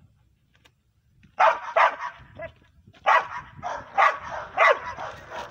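Belgian Malinois barking aggressively while being agitated in protection training: a run of loud, sharp barks about two a second, starting about a second and a half in.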